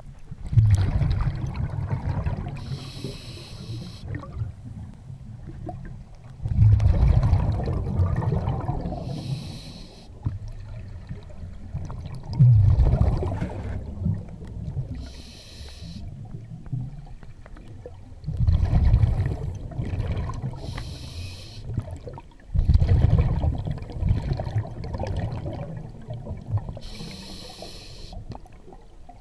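Scuba diver breathing through a regulator underwater: a short hiss of air on each inhale, then a long bubbling rumble of exhaled air, about every six seconds, five breaths in all.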